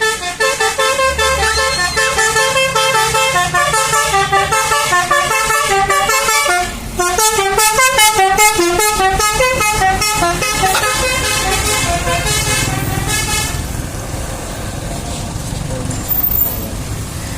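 Bus 'telolet' musical air horn (Basuri Andromeda) playing a quick melody of many short stepped notes, the tune shifting to a faster back-and-forth figure about seven seconds in, then stopping about thirteen seconds in. The bus's engine runs underneath throughout.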